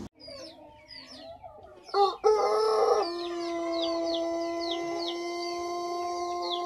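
Pelung rooster's long crow, starting about two seconds in with a loud opening and then held at one steady pitch to the end. Small birds chirp faintly behind it throughout.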